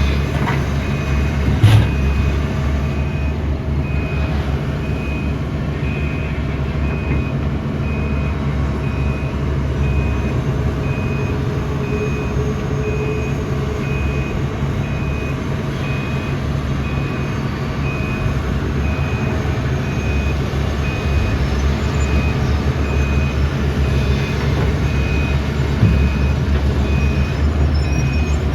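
Tata Hitachi 470 excavator's diesel engine running steadily, with its warning alarm beeping about twice a second throughout. A single sharp knock about two seconds in.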